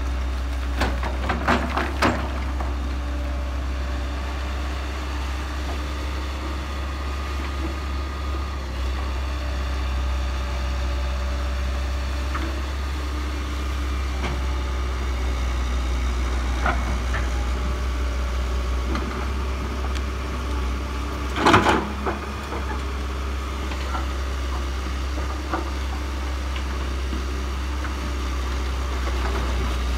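Heavy construction equipment engines running steadily at idle, with a few sharp knocks near the start and a louder cluster of clanks about two-thirds of the way through.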